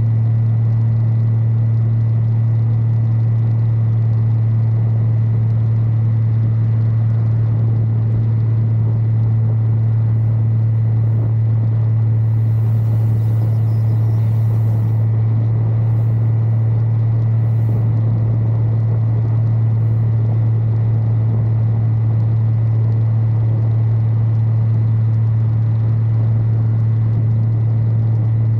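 Single-engine light aircraft's engine and propeller in steady cruise: a constant deep drone with a thin high tone above it, holding level throughout.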